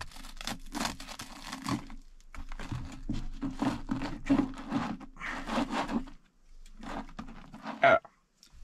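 A bag of rucola crinkling and rustling as it is handled, in irregular bursts, with a sharp knock near the end.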